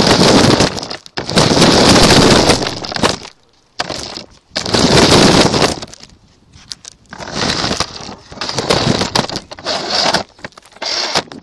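Loud rattling, crunching noise picked up by a camera mounted on a small toy car as it drives over the ground, coming in several bursts of a second or two with short pauses between them as the car stops and goes.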